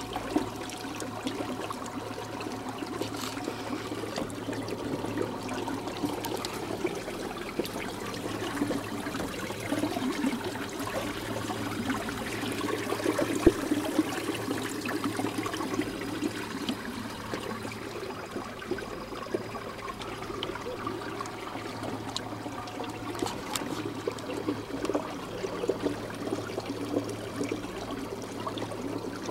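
Water continuously splashing and churning along the side of a moving kayak hull, with a faint steady low hum underneath.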